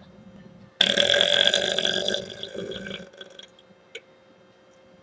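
A woman's long, loud belch. It starts about a second in and trails off over the next two seconds.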